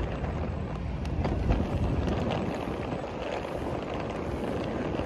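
Wind buffeting the microphone, a steady low rumble over faint outdoor background noise.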